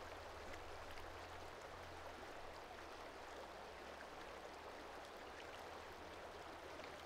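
Faint, steady rush of flowing water, like a stream, with a low hum beneath it.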